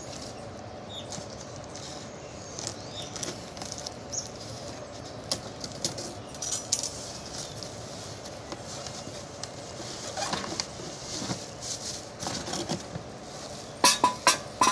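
Cardboard box being cut and pulled open with a large knife: scattered scraping, crackling and tearing of the cardboard. Near the end come a few loud, sharp knocks.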